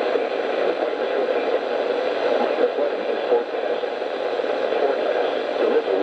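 Steady static hiss from a weather alert radio's speaker as the weather broadcast's signal breaks up, which the owner takes for the transmitter failing.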